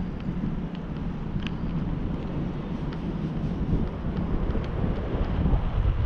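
Wind rumbling on the microphone of a bicycle-mounted camera as the bike rolls along a concrete path, growing a little louder near the end, with a few faint short ticks.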